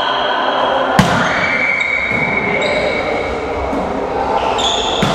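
A volleyball smacks sharply about a second in, and again near the end, amid players' voices. A thin high steady tone hangs for about two seconds after the first hit.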